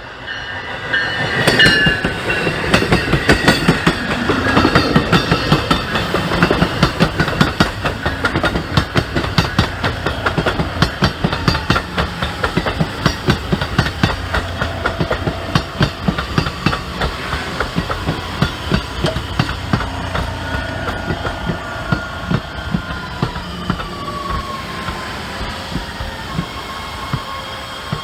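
Commuter train passing close by: its wheels clatter in a fast, even clicking over the rail joints, with thin high tones ringing above. It comes in loud about a second in and slowly fades over the second half.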